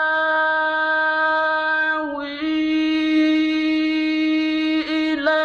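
Male voice chanting Qur'anic recitation in long melodic notes: a vowel held steady for about two seconds, a small turn in pitch, then another long held note, with a brief break near the end.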